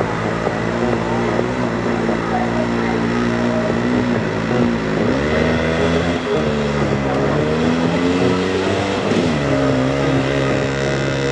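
Engine of a small homemade tractor running hard under load. Its pitch dips and climbs again twice, about four and a half seconds in and again about nine seconds in.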